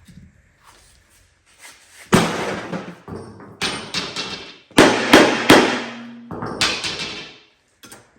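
Hammer blows on a steel lawn-tractor mower deck, about seven irregularly spaced strikes beginning about two seconds in, each clang ringing out briefly. The deck is being bent to bring the front of the blades level with the back.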